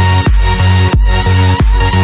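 Background electronic dance music with a heavy, sustained bass and a steady beat about every two-thirds of a second.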